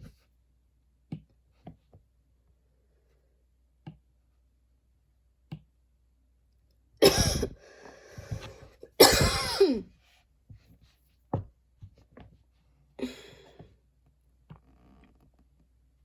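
A person coughing hard: two loud, harsh coughs about seven and nine seconds in, with noisy breathing between them, then a smaller cough near the end. Faint scattered clicks come before and between the coughs.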